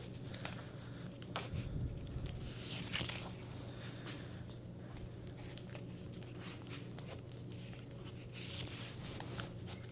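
Handlebar bar tape being stretched and wrapped around a bicycle's drop bars: faint rustling and creaking with scattered small clicks, over a steady low hum.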